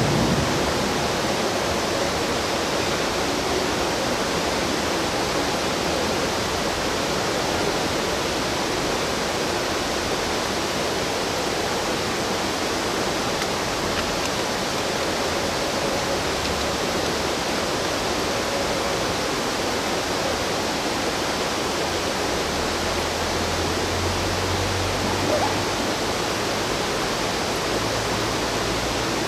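Steady rush of a fast-flowing mountain river running close by, an even, unbroken noise.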